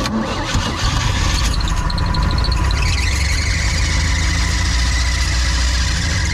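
A motor running steadily and loudly: a low rumble with a faint high whine over it.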